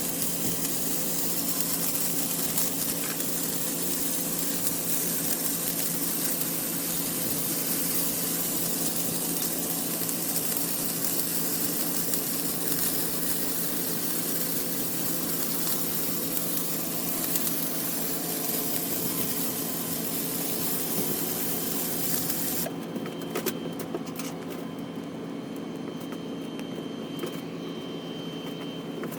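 Flux-core arc welding: a steady crackling hiss from the arc, over a constant machine hum. The arc stops about 23 seconds in, leaving the hum and a few scattered clicks.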